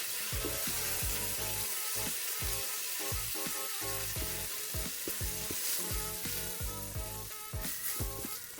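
Seasoned chicken pieces searing in hot avocado oil in a pan, sizzling steadily.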